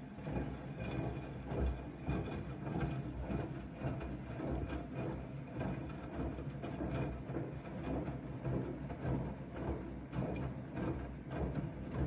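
Siemens iQ300 front-loading washing machine drum starting to turn in the wash cycle: the wet, sudsy laundry tumbles and the water sloshes inside the drum in uneven surges, over the hum of the motor.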